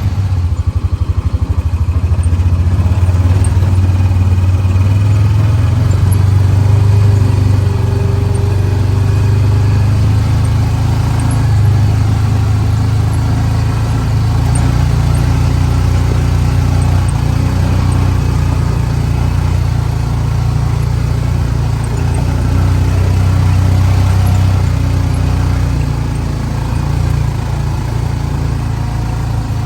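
Honda Pioneer side-by-side's engine running under load as it climbs a steep, slick, muddy trail in four-wheel-drive low with the differential locked. The engine note holds steady, rising and falling slightly with the throttle.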